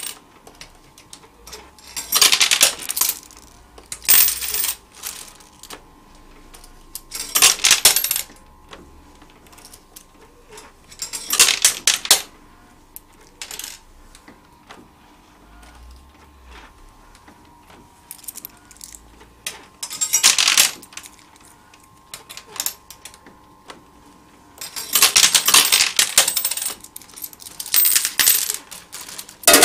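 Coins clattering in a Jungle Jive coin pusher arcade machine, in short bursts every few seconds as coins drop and spill, over a faint steady hum.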